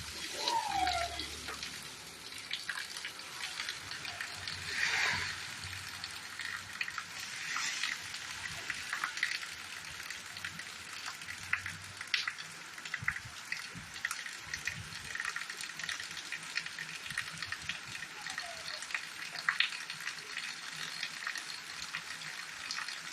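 Heavy rain falling steadily: an even hiss thick with the patter of close drops. Two short falling whistles sound over it, about a second in and again near the end.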